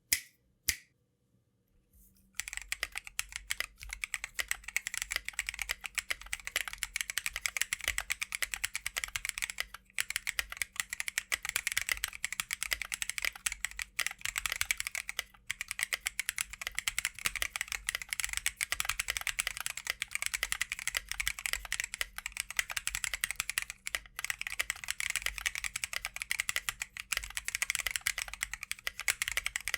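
Fast, continuous typing on a Tofu60 mechanical keyboard with lubed and filmed Drop Holy Panda tactile switches, a carbon fiber plate and KAT keycaps. A couple of single key clicks open the sound, then a short gap, and the typing starts about two seconds in and runs on with only a few short breaks.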